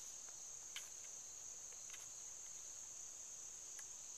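Crickets trilling steadily in a grassy field, a constant high-pitched chorus, with one faint click about a second in.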